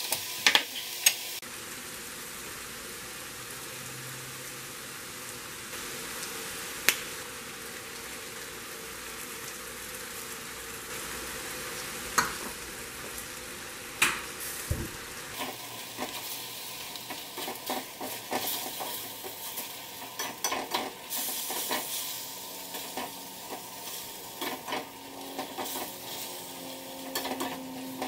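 Zucchini, tomato and onion sizzling in a stainless steel skillet, with a few sharp clicks. From about halfway, a wooden spoon stirs the vegetables, scraping and knocking against the pan.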